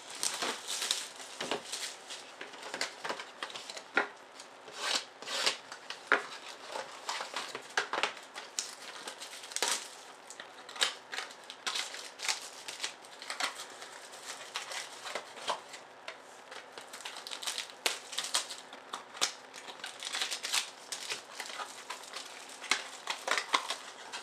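Clear plastic shrink wrap being torn off a sealed box of baseball cards and crumpled in the hands: a stream of irregular crinkles and crackles with small taps as the box and its wrapped packs are handled.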